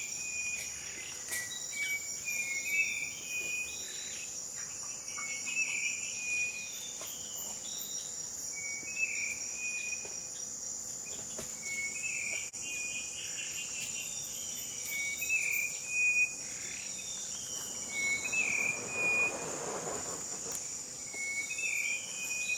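Insects holding a steady high-pitched drone, with short calls repeating every second or two, and a brief rustling swell near the end.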